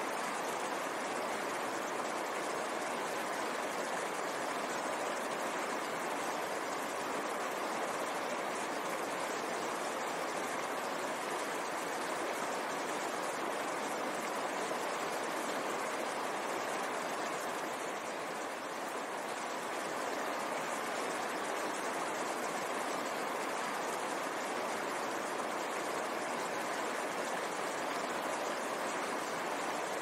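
Fast mountain stream rushing and splashing over boulders, a steady, even rush of water. It grows briefly a little quieter about eighteen seconds in.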